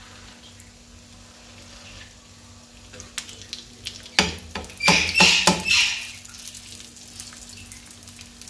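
Shami kebab patties shallow-frying in oil in an iron frying pan, with a steady sizzle. About halfway through, a slotted metal spatula clinks and scrapes against the pan several times in quick succession, the loudest sounds.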